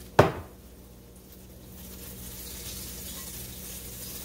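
A single sharp knock just after the start. From about two seconds in comes the steady hiss of hot oil sizzling as flour-dredged cube steak fries in a skillet.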